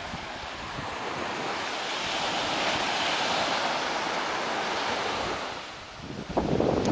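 Small surf breaking and washing up a sandy beach: a rushing hiss that swells over the first few seconds and then fades. Near the end a louder, rougher rumble of wind buffets the microphone.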